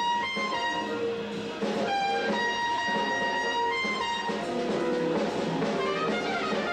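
Trumpet played live into a microphone with the band playing underneath: a few held notes, then from about four seconds in a quick run of notes up and down.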